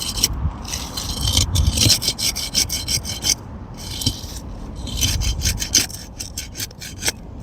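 Thin flat pry bar being worked under an asphalt shingle to break its adhesive seal strip: rapid scraping strokes in several bursts with short pauses between.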